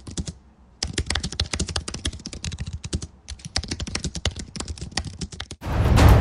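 Rapid typing on a computer keyboard, a dense run of keystroke clicks with a brief pause midway. Near the end, music with a deep drum comes in loudly.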